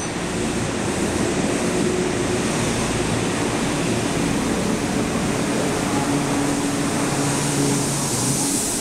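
JR West 221 series electric multiple unit pulling out of the station and gathering speed past the platform: steady running noise from its motors and wheels, with a few held low tones. A hiss rises near the end.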